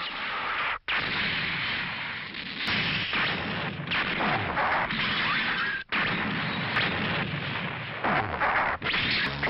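Anime battle sound effects from the 1979 Mobile Suit Gundam series: rapid gunfire from the Gundam's head vulcan guns, then explosions and crackling electric shocks. They come as several short spliced clips, each ending in an abrupt cut, about a second in, near six seconds and near nine seconds.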